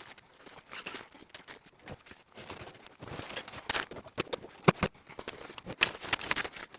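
Mail packaging rustling and crinkling while it is opened and sorted, with quick irregular clicks and taps from small items being handled, played sped up.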